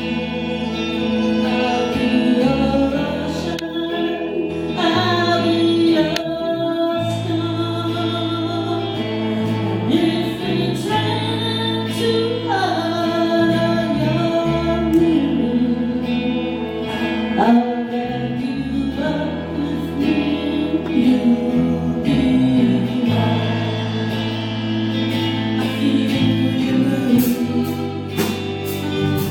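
A band playing a song with singing: a sung melody over long held bass notes that change every few seconds.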